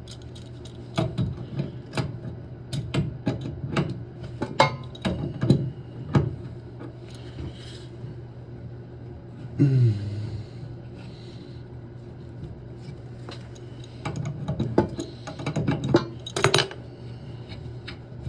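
Small metal clinks and taps of a wrench and the parts of a toilet supply shutoff valve as its bonnet nut is spun off and the valve is taken apart. The clinks come in two clusters, with a brief falling sound near the middle and a steady low hum underneath.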